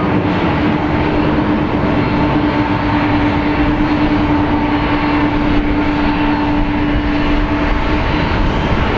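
Two CFM56 turbofan engines of a Boeing 737-800 running at takeoff-climb power as the airliner climbs away: a steady, loud jet noise with an even humming tone running through it.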